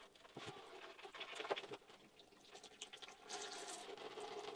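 Oil draining out of a bicycle frame's tubes, a faint steady trickle that sets in about halfway through, after a few light knocks as the frame is turned on the workstand.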